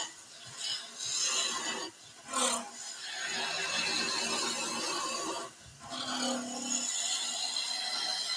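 Skew chisel taking a planing cut on a thin wooden spindle spinning on a wood lathe: a steady hissing, scraping cut that breaks off briefly about two seconds in and again past five seconds before going on.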